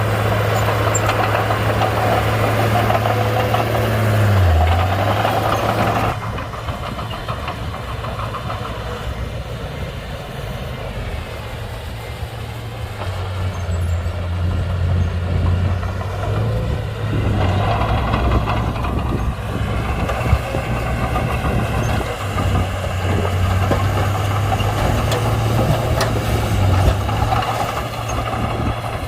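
Diesel engine of a Komatsu D31-P crawler bulldozer running steadily while the machine works. Its note dips briefly about four seconds in, the sound drops sharply about six seconds in, then builds back up about halfway through.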